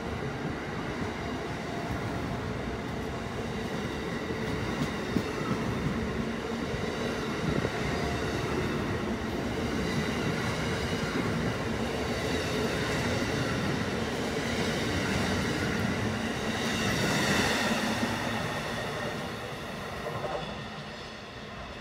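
Continuous wheel-on-rail rumble and rush of a string of Amtrak stainless-steel passenger cars rolling past, with faint steady high tones over it. The noise swells about 17 seconds in, then fades near the end as the last car goes by.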